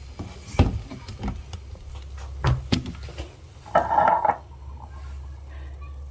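Kitchenware being handled: a few sharp knocks and clinks in the first three seconds, then a short rushing sound about four seconds in, over a steady low hum.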